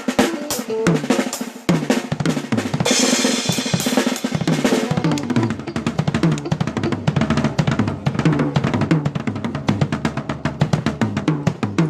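Drum kit played through the PA in a sound check: dense kick and snare strokes and fills, with a cymbal wash about three seconds in, and low pitched notes underneath.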